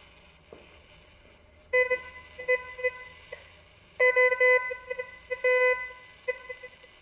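Thracian Manual Ground 18 kHz metal detector giving its audio target signal, a steady mid-pitched buzzing tone, as the search coil is swept over small gold nuggets. The tone comes in short beeps from about two seconds in, then in longer tones broken by brief gaps between about four and six and a half seconds.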